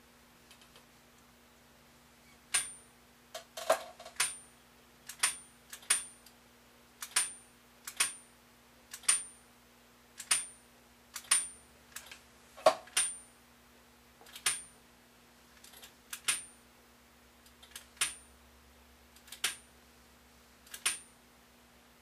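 Clicks of a Zenith Space Command mechanical remote control's button, pressed over and over about once a second. With each click a spring-loaded hammer strikes a tuned aluminium rod, which rings briefly at a high pitch. The channel-higher rod, whose main tone is the 41.25 kHz signal, is being sounded repeatedly so the receiver can be peaked during alignment.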